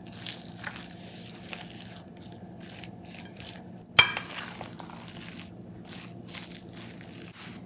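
Metal spoon stirring and mashing a thick potato-and-mushroom filling in a bowl: a run of soft, repeated scraping and squishing strokes, with one sharp clink of the spoon against the bowl about four seconds in.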